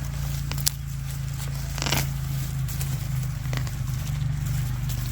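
Onions being pulled out of garden soil and handled: a few short crackles and scrapes of soil and roots, over a steady low hum.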